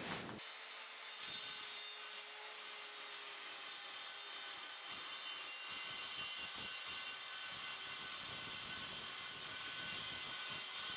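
Evolution R185 CCSL 185 mm TCT circular saw cutting through 6 mm aluminium checker plate: a steady, high, hissing cut, heard at low volume.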